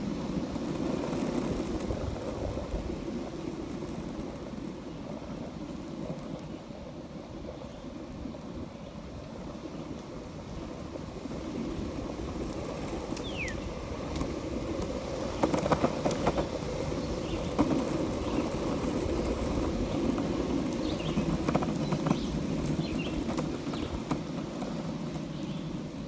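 Longboard wheels rolling steadily over an asphalt path, a continuous low rumble, with a few sharp clicks a little past the middle of the ride.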